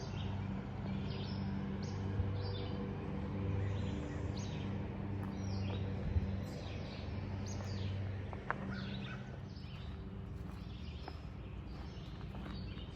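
Songbirds calling and chirping in woodland, many short calls throughout. Under them runs a low steady hum, like a distant engine, that fades out about two-thirds of the way through.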